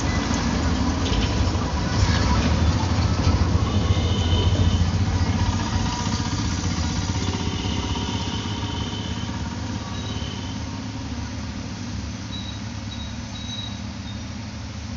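A steady, low engine-like rumble that slowly fades, with the scraping of a hand rasp roughening a rubber inner tube for patching.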